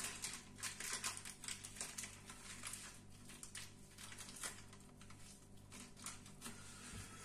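Faint rustling and crinkling of a small plastic piping bag of melted chocolate being handled and twisted, with small scattered clicks, over a steady low hum.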